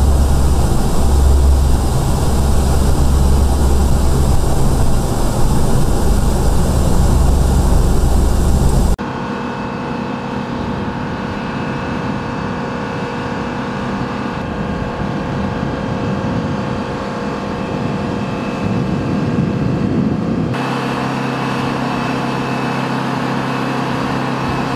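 AC-130 gunship's four turboprop engines running, heard inside the cockpit as a loud, deep drone. About nine seconds in this cuts suddenly to a quieter, steady turbine whine and hum around the parked aircraft, whose tone shifts again near the end.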